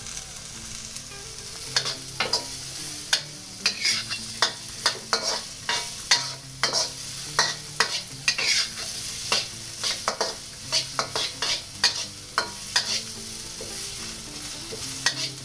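Diced carrots, garlic and shallot sizzling in a little oil in a wok, while a metal wok spatula stirs them, scraping and clicking sharply against the pan many times at an irregular pace.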